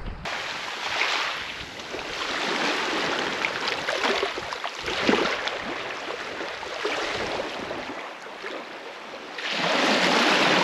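Small waves washing up onto a sandy beach and draining back, with a louder wash of surf near the end.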